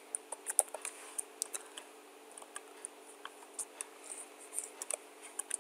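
Computer keyboard keys clicking in irregular, light keystrokes as code is typed, over a faint steady hum.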